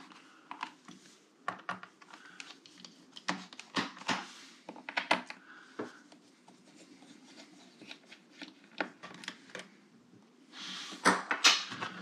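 Screws being undone on the plastic bottom cover of a Dell G15 laptop, some of them captive screws that stay in the cover: irregular sharp clicks and small scrapes as the tool works one screw after another.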